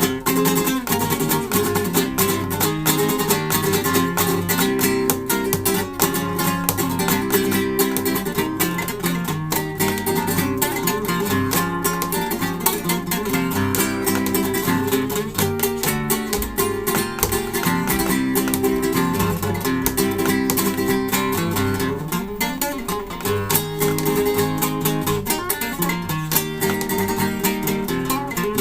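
Solo acoustic guitar played live: a continuous fast passage of strummed chords and plucked notes.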